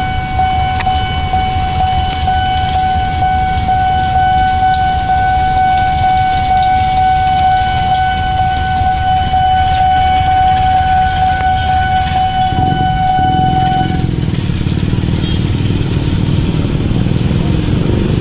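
Level-crossing warning alarm sounding one steady electronic tone, which cuts off about 14 s in as the crossing clears. Under it is a continuous rumble from the KAI CC201 diesel-electric locomotive shunting across the crossing and from the waiting motorcycles. The motorcycle engines grow louder near the end as the traffic moves off.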